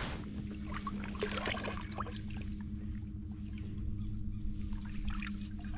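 Water lapping and splashing close to the microphone as a peacock bass is held in the lake water for release, with small scattered splashes over a steady low hum.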